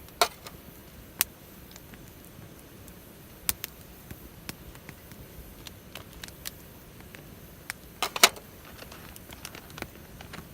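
Wood fire crackling in a Picogrill fire pit: irregular sharp pops and snaps, a few of them loud, with a quick cluster about eight seconds in.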